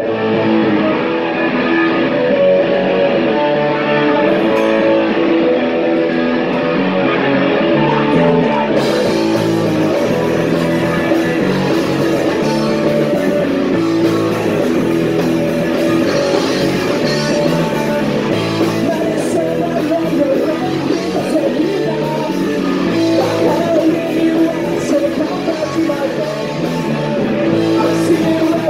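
Live punk rock band playing a song at full volume: electric guitar, drums and a singer.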